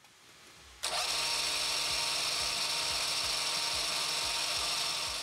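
Metal lathe starting up about a second in, then running steadily with a steady motor whine and hum as the spindle turns a collet chuck.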